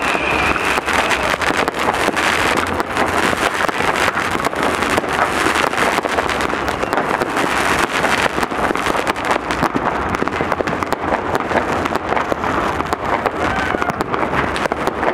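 Dense, continuous crackling and banging of many fireworks, rockets and firecrackers going off at once, a steady din of overlapping bangs with no pause.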